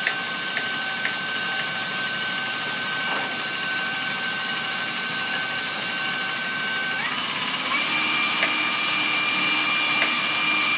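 Electric stand mixer running steadily, its whisk whipping heavy cream, with a motor whine whose pitch steps up about seven seconds in. Faint regular clicks of a paring knife meeting a plastic cutting board run alongside.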